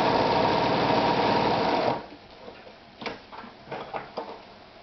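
Victoria 124 domestic sewing machine running fast while sewing an elastic stretch stitch, then stopping abruptly about two seconds in, followed by a few light clicks.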